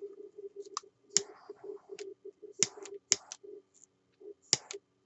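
Several sharp clicks and short scrapes of a mixing stick against a thin plastic cup, scraping out the last of the resin.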